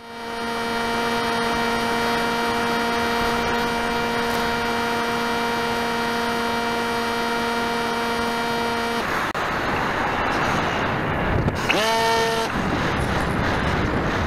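Model airplane's motor and propeller heard from the onboard camera: a steady whine at constant throttle that cuts off about nine seconds in, leaving a rush of air as the plane dives and spins. A little past eleven seconds the motor whine briefly rises in pitch, then stops again.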